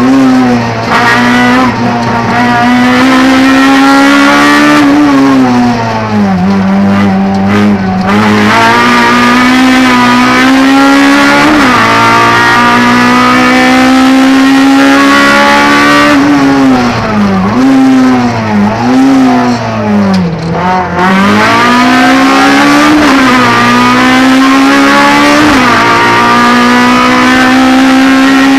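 Honda Civic Type R's four-cylinder race engine at full throttle, heard from inside the caged cabin. It revs high and climbs through the gears, with sharp drops in pitch at each upshift. About two-thirds of the way through it falls back in a quick run of downshifts and throttle blips, then pulls hard again.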